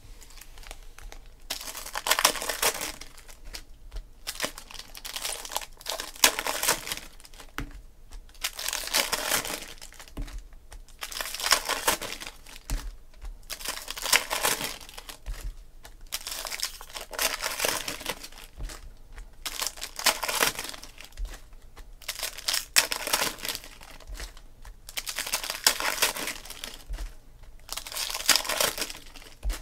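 Shiny foil wrappers of 2016 Panini Prizm Football jumbo card packs crinkling and tearing as the packs are ripped open and handled, in repeated bursts a second or two long with short pauses between.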